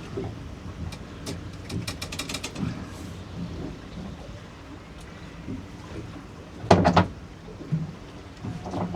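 Small boat in choppy water with a steady low rumble of wind and sea. A quick run of light clicks comes near the start, and one loud knock about seven seconds in.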